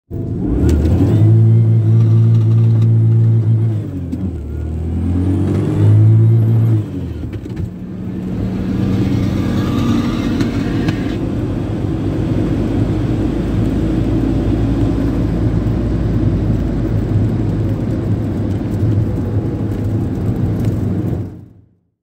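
Turbocharged Pontiac Fiero accelerating hard. The engine revs high, drops at a shift about four seconds in, and climbs again. About seven seconds in the revs fall away: the shift into third is missed. A steady, lower rumble of the car follows and fades out near the end.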